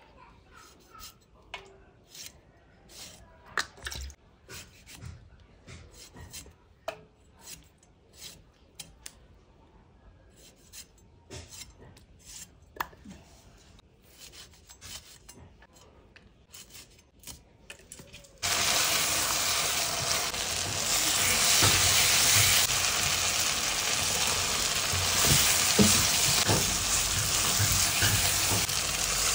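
Tomato and green chilli being sliced against a curved boti blade: a scattered run of small sharp cuts and taps. About two-thirds of the way through it switches abruptly to a loud, steady sizzle of curry frying in a pan while a spoon stirs it.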